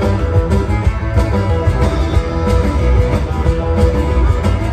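Live band playing a song: a Roland V-Drums electronic drum kit keeping a steady beat under electric guitar, with a heavy low end.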